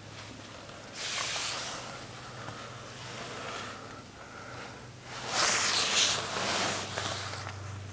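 Rustling and scraping as a person crawls through a crawl space, body and clothing brushing over the ground and plastic sheeting. The noise comes in two louder bouts, about a second in and around five seconds in, over a steady low hum.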